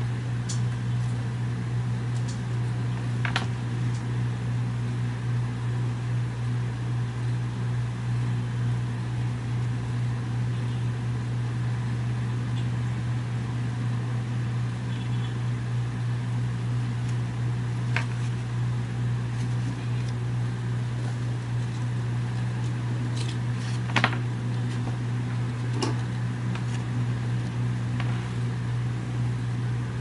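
Steady low machine hum, like a fan running, with a few short sharp clicks as wires and pliers are handled.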